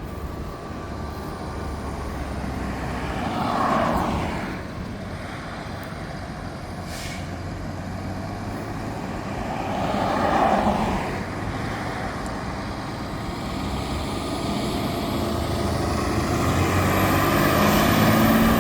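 Highway traffic, with two vehicles passing by about four and ten seconds in. Near the end a fire engine's engine grows steadily louder as the truck pulls out.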